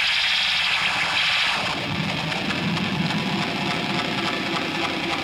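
Lo-fi live punk band sound off an old tape: distorted electric guitar with a hissing wash. The hiss fades about two seconds in, leaving a droning, held guitar tone.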